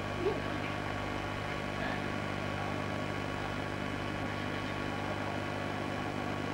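A steady hum and hiss with no distinct sound standing out, typical of an old home camcorder's own recording noise.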